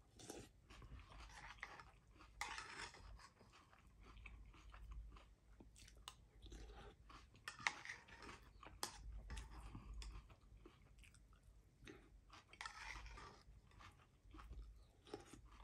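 Faint chewing and crunching of Fruity Pebbles cereal, in irregular bursts with small clicks.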